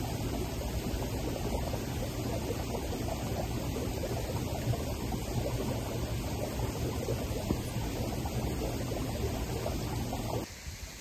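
River water rushing steadily with a deep, full sound. Near the end it cuts suddenly to a quieter, thinner hiss.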